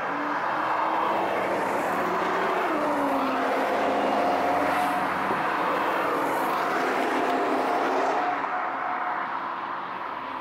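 Track-day cars running at speed around the circuit, more than one engine heard at once, their pitch rising and dropping with throttle and gear changes. The sound holds steady and eases off slightly near the end.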